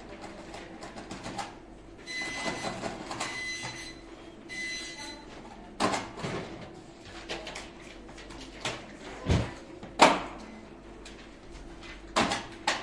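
Office background ambience: scattered clicks, knocks and thumps, the loudest a sharp knock about ten seconds in, just after a deep thump. In the first half a machine's steady whine runs twice, for a second or two each time.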